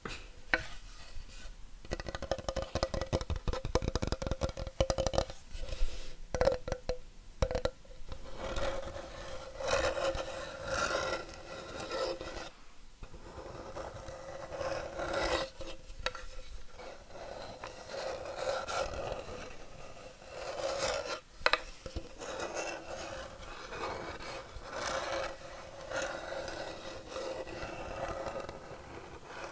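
Fingernails tapping rapidly on a wooden board for the first several seconds, then scratching and rasping across the wood in repeated strokes.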